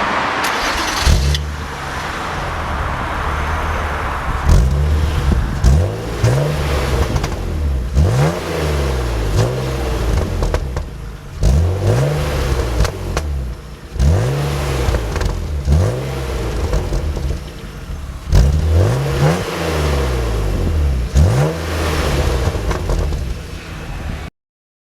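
BMW E36 328i's 2.8-litre straight-six with its stock exhaust, revved again and again: each rev climbs quickly and drops back to a steady run between. The sound cuts off suddenly near the end.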